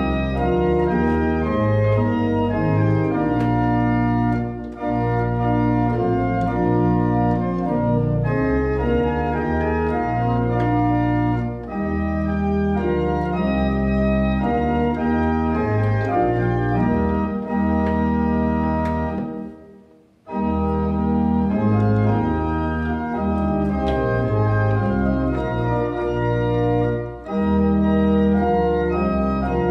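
Church pipe organ played from its console: full sustained chords moving through changing harmonies with a deep bass. About twenty seconds in, the playing stops briefly for a phrase break, then resumes.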